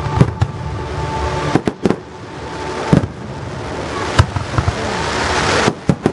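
Fireworks display: aerial shells bursting with a quick series of sharp bangs, about ten in all. Underneath them a rushing hiss of noise builds through the middle and cuts off shortly before the end.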